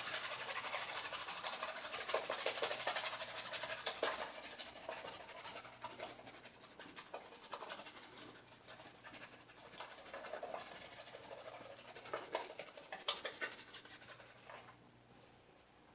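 Wet synthetic shaving brush scrubbing soap lather over a stubbled face, a dense crackly scrubbing. It is strongest in the first few seconds, eases off, swells again with a few sharper strokes toward the end, then dies away.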